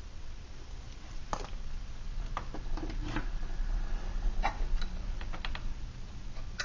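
Light metallic clicks and taps from a metal camp cooking pot and its lid being handled and lifted off a small can-type alcohol stove, several separate strikes, a few ringing briefly.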